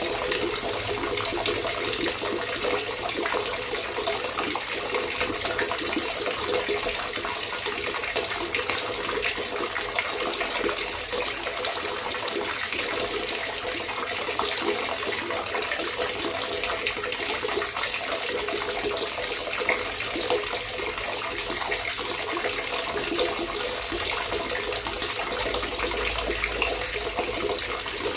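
Running water trickling and gurgling steadily, with a constant fine splashing.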